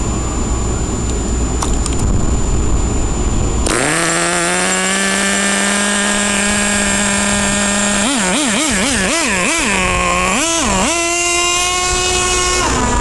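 Nitro RC monster truck's small glow-fuel engine running at a steady high buzz from about four seconds in, after a few seconds of low rumbling noise. From about eight seconds in it is revved in quick blips, with one bigger rev, then holds a higher pitch before dropping back near the end.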